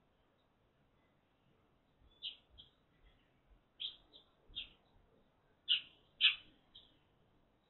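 Eurasian tree sparrow chirping: about eight short, separate chirps, singly and in quick pairs, beginning about two seconds in, the loudest two near the end.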